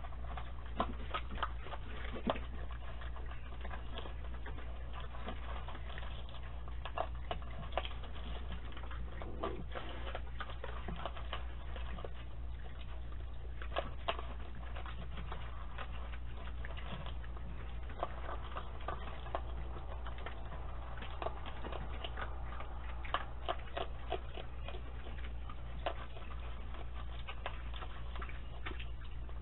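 Raccoons eating dry kibble from metal and plastic bowls: a scatter of irregular crunching clicks and bowl clinks over a steady low hum from a security camera's microphone.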